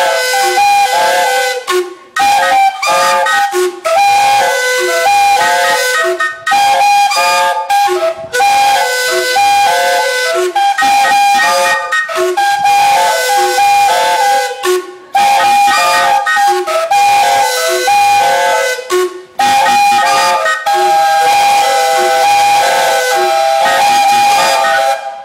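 Several narrow-gauge steam locomotive whistles playing a written tune together, sounding short and held notes at several pitches at once in a steady rhythm, with brief pauses between phrases. The piece stops abruptly at the very end.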